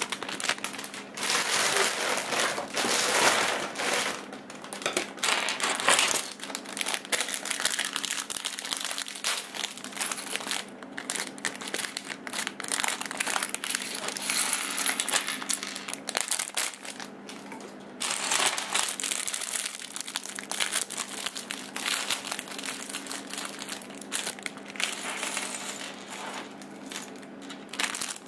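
A plastic LEGO parts bag crinkling while loose plastic bricks clatter and click against each other and the table as they are poured out and sorted by hand.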